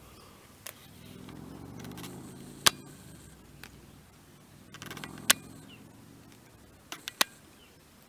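Camera handling and zoom noise: several sharp clicks, with a quick cluster of three near the end, over a faint low hum that swells twice.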